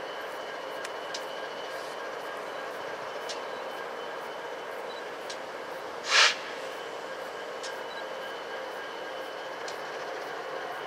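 Freight diesel locomotives standing and idling with a steady hum. About six seconds in, a short loud hiss cuts through.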